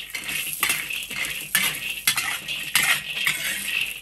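Metal wok spatula scraping and clanking against a wok as it stirs and tosses raw peanuts during wok-roasting, about two strokes a second. The peanuts are kept moving so they don't burn or scorch.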